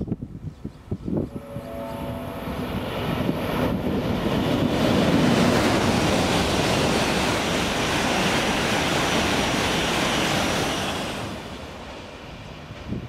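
Tohoku Shinkansen bullet train running past the platform at speed: a rush of air and wheel-on-rail noise that builds over a few seconds, stays loud and then falls away near the end.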